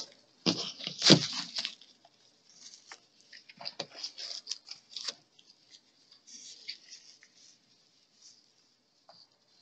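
Thin foam packing sheet crinkling and rustling as it is wrapped around the model locomotive and tied with ribbon. There are two thumps about half a second and a second in.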